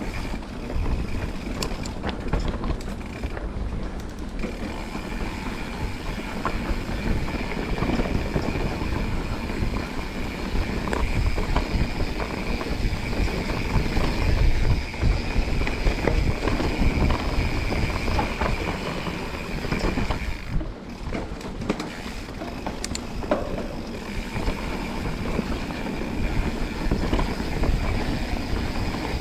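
Mountain bike rolling fast down a rough dirt trail: the bike rattles and the tyres rumble over the ground, with a steady high buzz that drops out briefly twice, and low wind rumble on the microphone.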